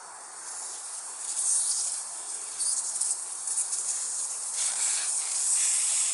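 Compressed air hissing steadily out of a Model T's 30 x 3.5 clincher tyre inner tube through the open valve stem, the valve core just unscrewed to deflate the tyre from about 60 psi. The hiss grows louder about a second in and then holds.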